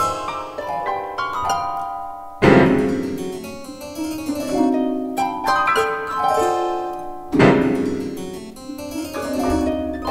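Contemporary chamber music for piano, harp, electric harpsichord and electric celesta: quick figures of plucked and struck notes. Two loud, low chords sound about two and a half and seven and a half seconds in, each ringing away.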